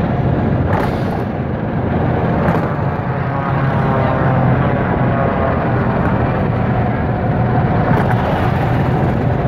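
Golf cart driving along, a steady drone of its running and rolling that stays even in loudness throughout.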